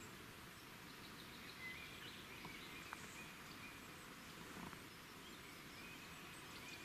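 Faint woodland ambience: a low steady hiss with a few thin, distant bird calls and scattered small ticks.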